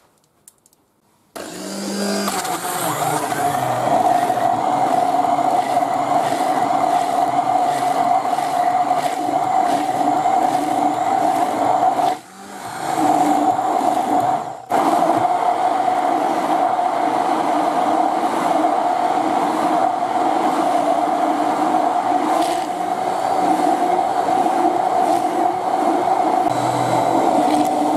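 A 400-watt hand blender starts about a second in and runs steadily with a whine, blending a liquid egg mixture in a plastic beaker. It falters briefly twice about halfway through.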